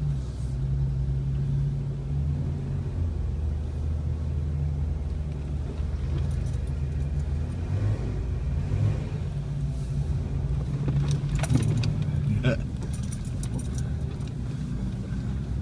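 Off-road vehicle engine running low and steady from inside the cab as it crawls over a rocky trail, with a cluster of clinks and rattles about eleven to thirteen seconds in.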